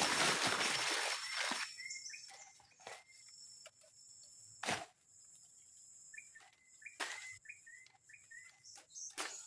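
A bird calling in two spells of short, quick chirps, with a few sharp clicks in between and a faint steady high whine behind. A rustling noise fades out over the first second or so.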